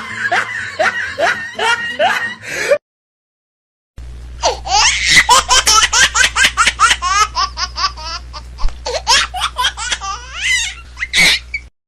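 Laughter sound effects: one laugh clip of quick ha-ha pulses cuts off about three seconds in, and after a second of dead silence a second, longer laugh starts, a hearty run of rapid pulses with a steady low hum under it that cuts off just before the end.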